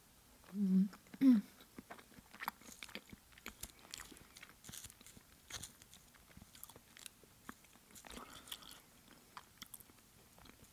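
Close-miked chewing of sashimi: wet mouth clicks and smacks at an irregular pace. Two short voiced sounds come in the first second and a half.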